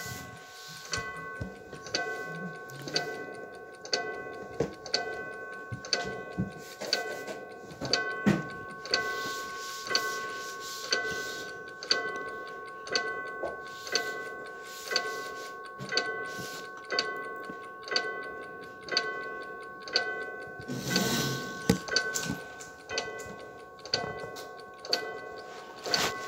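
Clock ticking steadily, about once a second, from a cartoon soundtrack played through a TV's speakers, with a steady high tone held underneath. A short rushing noise comes in about 21 seconds in.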